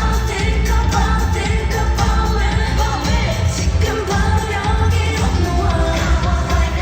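Live K-pop song played loud through a venue sound system, with vocals over a heavy, steady bass beat.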